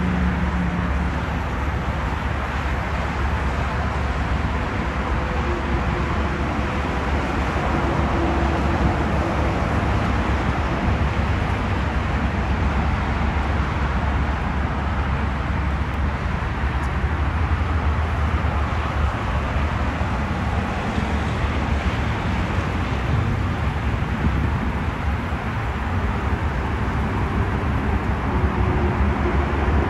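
Steady car noise: a constant low rumble with an even road-noise hiss.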